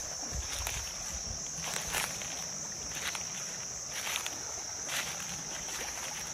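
Insects droning steadily at a high pitch over the rush of a shallow stream, with irregular splashes of a person wading through the water.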